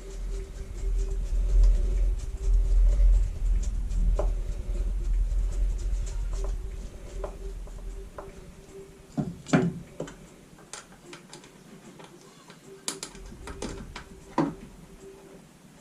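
Scattered clicks and knocks of tools and plastic parts being handled, with a few sharper knocks in the second half. A low rumble runs through roughly the first half, and a faint steady hum sits underneath.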